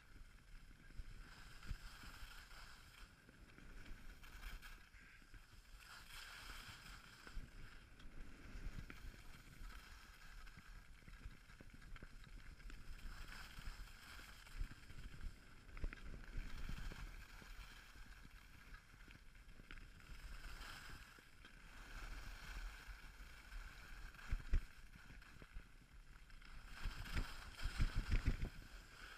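Skis sliding and scraping over packed snow with wind rushing past the action camera's microphone, rising and falling with the turns. Near the end a stretch of rapid low rumbling thumps as the skis run over rough, choppy snow.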